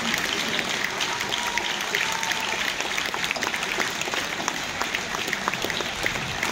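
A large crowd applauding steadily: many hands clapping in a big indoor arena.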